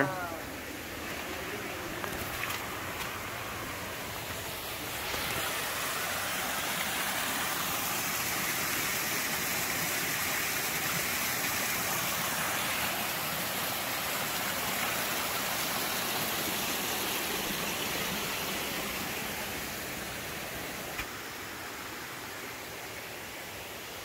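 Small garden waterfall splashing into a pond: a steady rush of falling water. It grows louder about five seconds in, holds through the middle, and fades toward the end.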